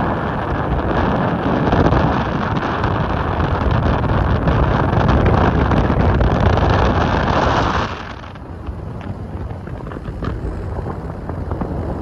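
Loud wind noise on the microphone, a steady rushing and buffeting. About eight seconds in it drops suddenly to a quieter low rumble.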